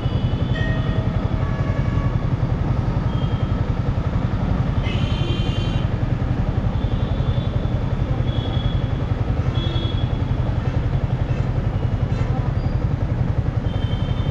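Yamaha R15 M motorcycle's single-cylinder engine idling steadily while stopped. A brief high-pitched vehicle horn sounds about five seconds in.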